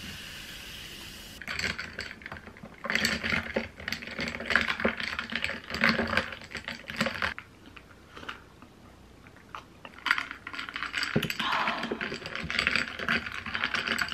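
Ice cubes clinking and rattling against a tall glass of mango ade as it is stirred with a straw, in two long stretches of bursts. Before that, for the first second and a half, the steady hiss of freshly poured sparkling water fizzing.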